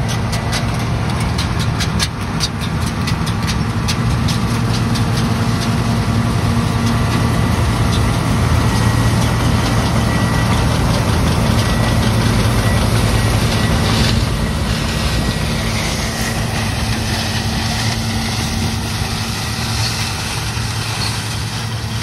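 John Deere Turbo 6620 combine's six-cylinder turbo diesel running under load while harvesting soybeans, a steady drone with the clatter of the header and threshing works. It grows a little louder as the machine passes close by, then eases as it moves away.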